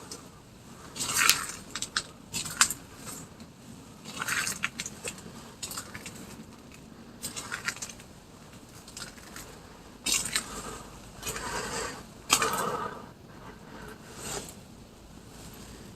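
Irregular crunching and scraping steps on debris, about seven bursts spread unevenly through the stretch, as someone walks through a derelict building.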